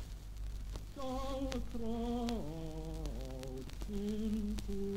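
Old 78 rpm EMIdisc home recording playing back: a voice sings a slow tune in held notes that slide down between pitches, starting about a second in. Surface clicks and a steady low hum run under it.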